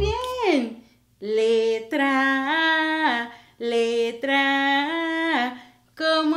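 A woman singing a Spanish vowel song for small children, mostly unaccompanied, in long drawn-out 'aaaa' notes that step up and down in pitch. The phrases are split by short breaths about a second in, halfway through and near the end.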